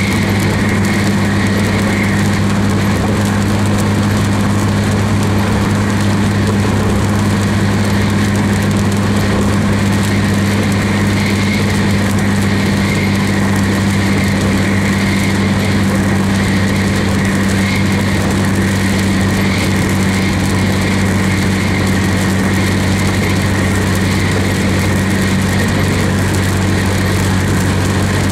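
Vehicle cabin at steady driving speed: a constant low engine drone over an even rush of tyre and road noise from the wet pavement.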